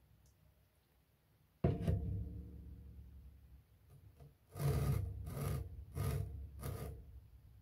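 Plastic plant pot being handled: a sudden thump, then four short rubbing scrapes.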